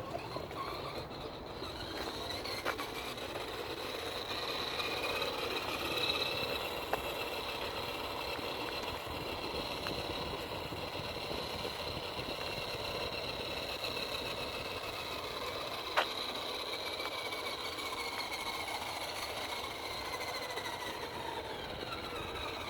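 Electric motor and gear drivetrain of a radio-controlled scale rock crawler whining steadily as it crawls, the pitch drifting slightly with throttle. A single sharp click about sixteen seconds in.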